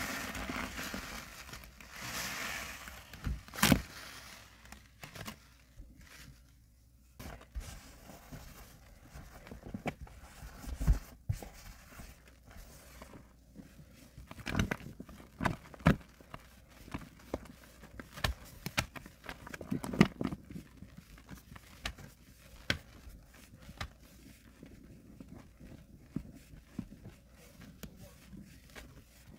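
A soaked, soapy sponge being squeezed and pressed: a foamy squish with fizzing suds at first, then scattered wet squelches and crackles as it is pressed again and again.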